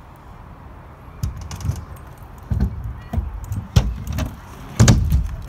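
Kick scooter rolling over concrete ramps, its wheels rumbling and its frame rattling, with a loud clack near the end.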